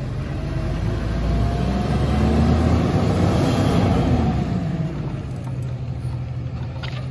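Autocar ACX rear-loader garbage truck pulling away: its engine revs up over the first couple of seconds, peaks in the middle, then eases back to a steady run as the truck moves off.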